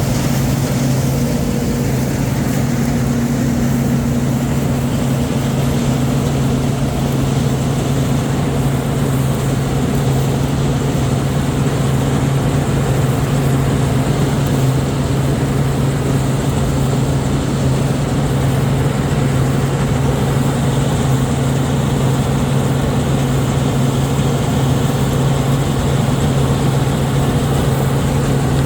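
Heavy farm machinery engine running steadily at constant speed, a low, even drone with no change in pitch.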